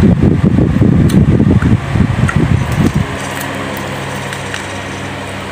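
Close-up chewing of a bite of crispy fried chicken: a dense run of low mouth sounds that stops about three seconds in, leaving a steady mechanical hum.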